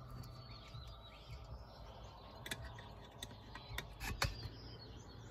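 Scattered faint clicks and light metal taps as a C-clip and pin are worked out of the aluminium antenna-mount arm and the tubing is pulled free.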